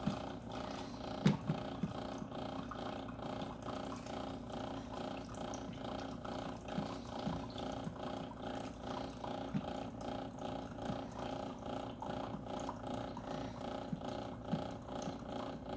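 Steady mechanical hum with a regular pulsing, under a few soft taps and scrapes of a silicone spatula stirring scrambled eggs in a skillet.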